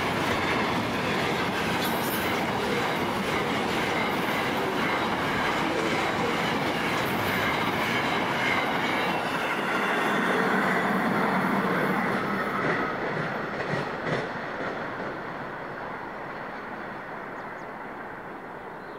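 Container freight train wagons rolling past on steel rails, wheels clicking over the rail joints with some wheel squeal. The noise holds steady, then fades away over the last several seconds as the end of the train passes.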